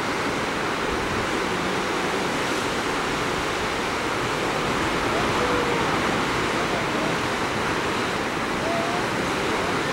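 Steady rush of ocean surf with wind, a continuous even roar of breaking waves with no pauses.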